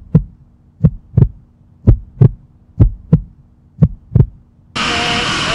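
Heartbeat sound effect: paired low thumps, lub-dub, about once a second, four beats. About 4.7 s in it cuts off suddenly and loud, steady wind and motorcycle noise begins.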